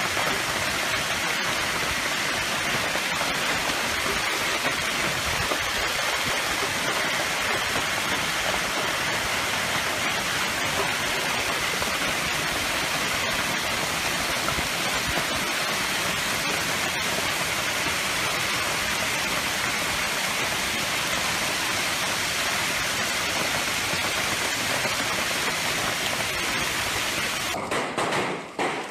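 Heavy hail mixed with rain pelting the ground, a dense, steady hiss. About a second before the end it gives way to separate sharp hits of hailstones.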